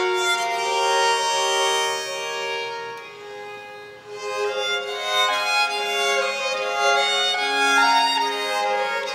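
Baroque violins playing together in long held notes, with a brief softening about three to four seconds in before the playing picks up again.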